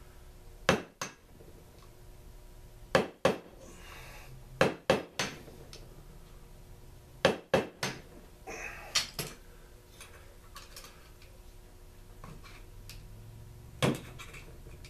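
Sharp metal taps from a hand tool striking metal parts, coming in twos and threes a few seconds apart, with tools clinking against each other on a workbench.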